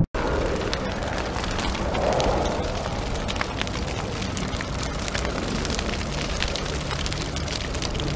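A steady low rumble with dense crackling running through it, the kind of dark sound-effect bed laid under text cards. It starts just after a very brief cut to silence.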